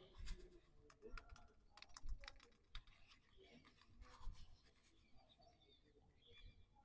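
Faint clicks and scratches of a plastic toy RC transmitter being handled and turned over in the hands, with a thumb working at its battery cover; a small cluster of clicks about two seconds in and another about four seconds in.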